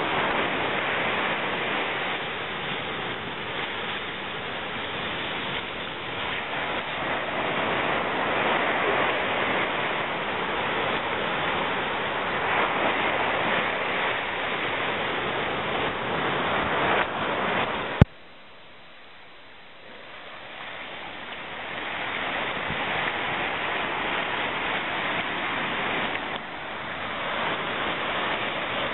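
Ocean surf breaking and washing up a sand beach as a steady rushing noise. About 18 seconds in, a sharp click cuts the sound down abruptly, and the surf then swells back up over a few seconds.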